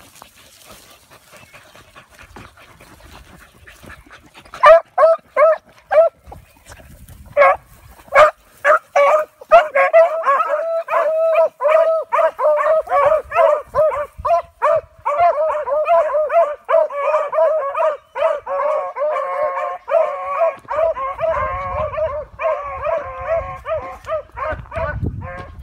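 Beagles giving tongue in brush: single short barks start about five seconds in, and from about ten seconds several hounds bay together in a near-continuous, overlapping cry, the sound of hounds running a scent line.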